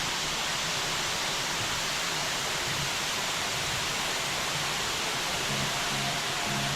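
Waterfall rushing: a steady, even roar of falling water. Faint music starts to come in near the end.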